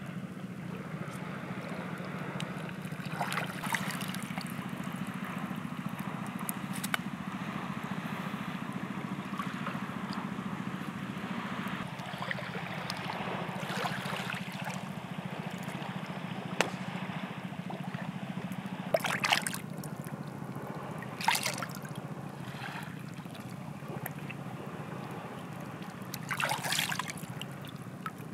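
Seawater trickling and dripping off a squid as it is cleaned and rinsed by hand at the water's edge, with several short splashes, over a steady background wash.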